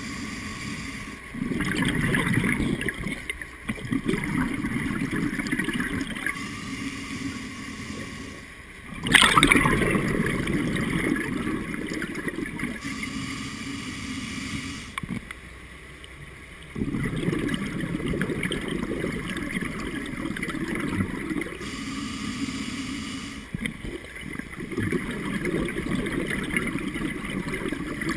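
Scuba diver breathing through a regulator underwater: four long exhalations of rushing, gurgling bubbles, each a few seconds long, alternate with shorter, quieter hissing inhalations. The loudest burst of bubbles comes about nine seconds in.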